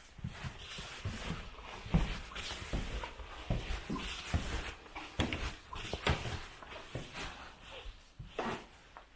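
Footsteps on old wooden floorboards and stairs, dull thumps about two a second, over a soft rustling haze.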